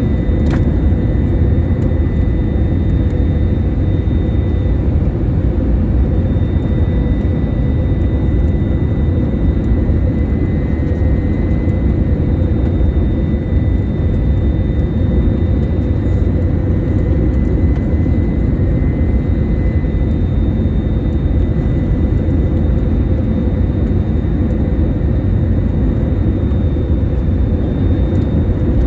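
Airbus A321 cabin noise from a window seat on final approach: a steady low rush of airflow and jet-engine noise, with a faint steady whine above it.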